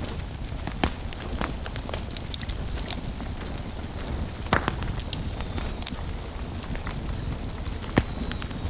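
Fire burning: a steady low rushing noise with frequent sharp crackles and pops, two of them louder, about halfway through and near the end.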